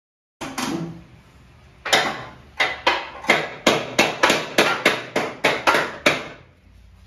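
Hammer striking the metal of a stripped VW Beetle chassis and floor pan: a single blow, then after a short pause about a dozen sharp, ringing strikes at about three a second.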